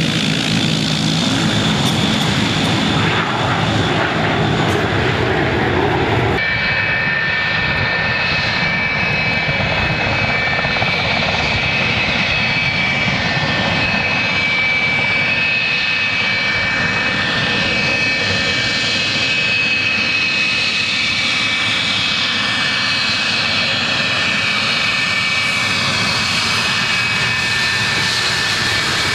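A four-engine turboprop running as it taxis. After a cut about six seconds in comes a JASDF F-4EJ Phantom II taxiing, its twin J79 turbojets giving a steady high whine over a rumble.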